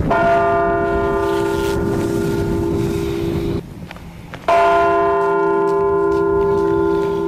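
A monastery church bell in its belfry, struck twice about four and a half seconds apart in a slow toll. Each stroke rings on with a cluster of steady tones; the first ring cuts off suddenly.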